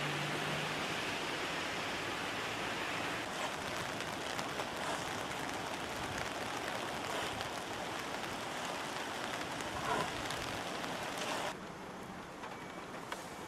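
Fast-flowing floodwater rushing, heard as a steady, even hiss of water noise that drops to a quieter level near the end.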